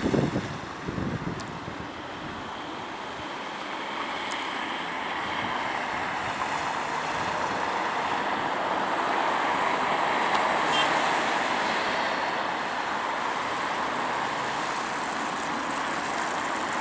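Jet noise from the four GEnx-2B engines of a Boeing 747-8 business jet in flight: a steady roar that builds over about eight seconds, then eases a little as the aircraft flies off. Wind buffets the microphone briefly at the start.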